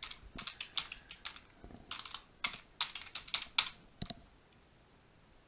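Typing on a computer keyboard: a quick run of separate keystrokes that stops about four seconds in.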